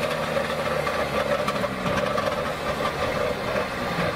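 Small two-stroke, two-cylinder engine of a Trabant 601 convertible running steadily as the car moves off slowly.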